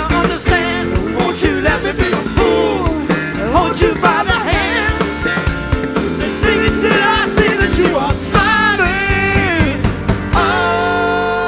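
Live rock band playing an instrumental passage: drum kit and bass under a melodic lead line that bends and wavers in pitch, settling on a held chord near the end.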